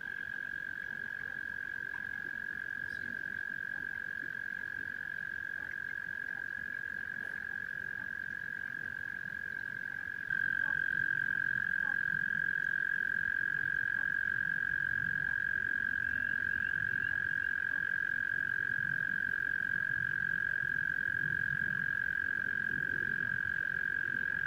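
Chorus of frogs calling, blending into one steady, continuous high trill; it jumps louder about ten seconds in.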